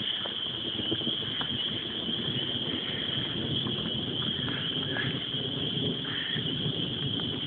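Steady, high-pitched chorus of small calling animals in the evening, over a low, uneven rumbling noise.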